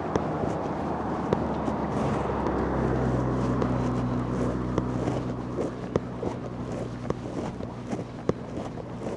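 A motor vehicle's engine running close by with a steady low hum, building about a second in, strongest in the middle and fading toward the end, as it passes on the road. Evenly paced footsteps and wind on the microphone run underneath.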